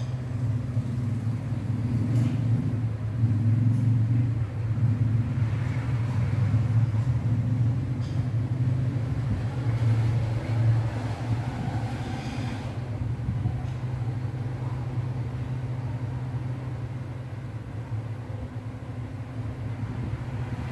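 A low machine hum, louder in the first half, with a few faint brief noises over it.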